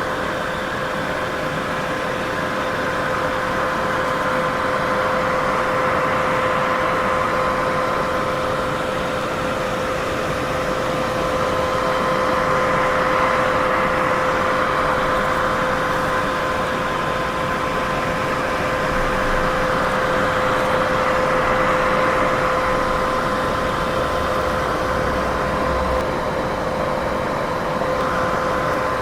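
Steady white noise for sleep, strongest in the middle range, with two faint steady hum tones running through it and slow, gentle swells in level.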